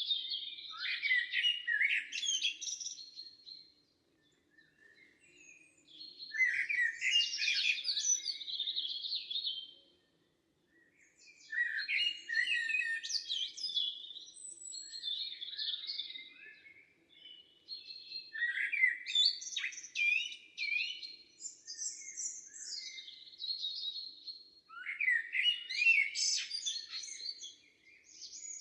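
Songbird song in a summer forest: busy phrases of quick chirping and trilling notes, each lasting a few seconds, repeated about five times with short pauses between them.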